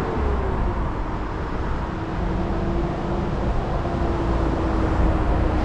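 Road traffic on the street alongside: vehicles passing with a steady engine drone and tyre rumble, growing louder near the end as a vehicle approaches.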